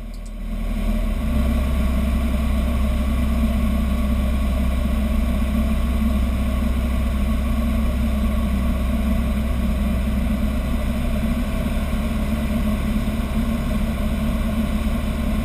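Robin DR400 light aircraft's piston engine and propeller running steadily in cruise, heard from inside the cockpit; the drone comes up about a second in and then holds level.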